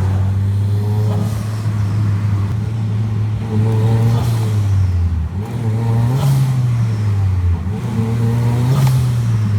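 Turbocharged car engine revved repeatedly, each rev followed by the pshh of its blow-off valve venting through a nozzle ported before the flare, about four times.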